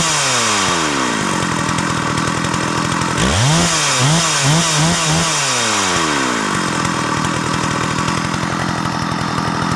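Early Stihl 084 two-stroke chainsaw running. It falls back from a rev to idle, gets three or four quick throttle blips about three and a half seconds in, then settles back to a steady idle. The saw is tuned a little rich, and the owner hears a little noise in the clutch that seems out of place.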